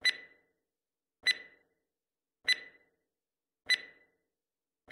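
Countdown timer sound effect: short, sharp ticks, each with a brief ringing tone, repeated at an even pace about every 1.2 seconds, counting down the time left to answer the question.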